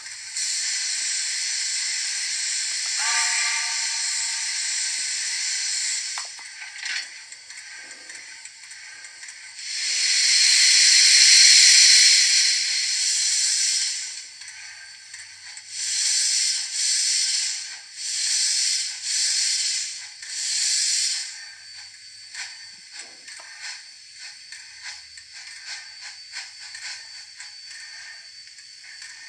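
Large-scale model steam locomotive's sound system: a steady steam hiss with a short pitched whistle-like tone about three seconds in, a louder hiss around ten seconds, then four slow steam chuffs about a second apart. After that come light irregular clicks from the locomotive's mechanism and wheels on the rails.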